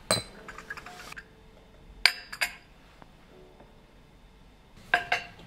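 China coffee cup on its saucer, with a teaspoon, clinking as it is set down on a marble table: a few sharp clinks, the loudest pair about two seconds in and two more near the end.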